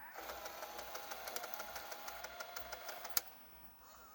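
Sony CCD-V110 Video 8 camcorder's motorised tape eject mechanism running: a steady whir with rapid ticking for about three seconds as the tape unloads, ending in a sharp click.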